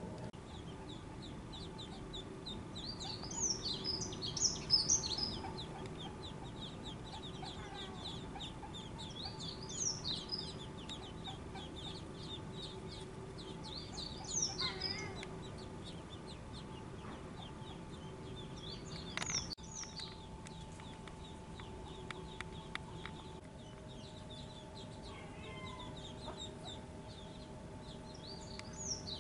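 Mallard ducklings peeping: a constant stream of thin high peeps, with louder bursts of rapid peeps about every five seconds.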